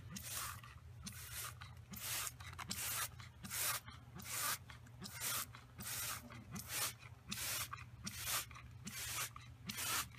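Short hissing swishes repeating roughly twice a second, a little unevenly, over a low steady hum.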